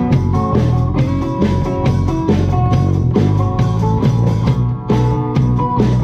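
Live blues band playing an instrumental passage between verses: guitar, upright bass and drum kit with a steady beat.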